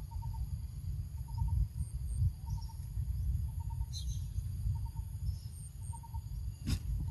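Crickets and other insects calling steadily in high tones, with a short triple chirp repeating about once a second, over a loud, uneven low rumble. A single sharp click near the end.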